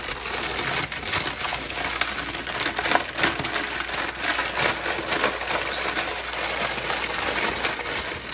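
Fritos corn chips poured from their crinkling bag into a big steel bowl of salad: a continuous stream of small hard chips clattering and rustling as they land.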